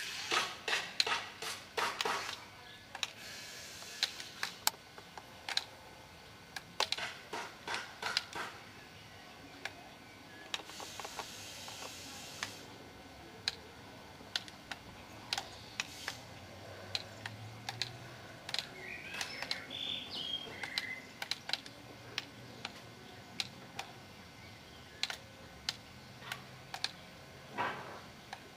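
Irregular sharp clicks and taps, a quick run of them at first and then scattered singly, over a faint steady background hiss.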